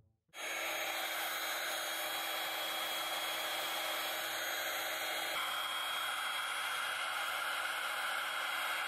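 Handheld electric air pump running steadily as it inflates a vinyl inflatable coffin, a continuous blowing hiss over a constant motor hum. It starts abruptly just after the start, and its tone shifts slightly about five seconds in.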